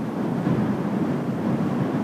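Storm-force wind buffeting a windshielded shotgun microphone, a gusty, rumbling rush that rises and falls, with surf on the seawall beneath it.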